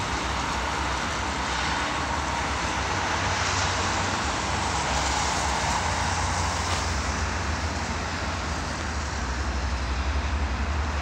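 Steady road traffic noise from cars passing on a multi-lane city road: an even hiss of tyres over a low rumble, the rumble growing uneven near the end.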